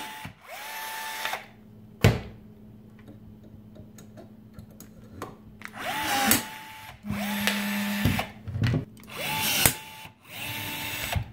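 Milwaukee M12 2550-20 cordless rivet tool setting 1/8-inch stainless steel pop rivets in steel. Its motor whines in short runs, each rising quickly to a steady pitch, paired as a pull stroke that snaps the mandrel and a return. It cycles about three times, with sharp metallic clicks between.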